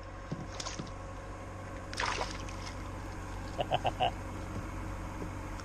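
Water moving along a kayak's hull, with a splash about two seconds in from a hooked largemouth bass thrashing near the surface. About two-thirds of the way through come four short, high chirps.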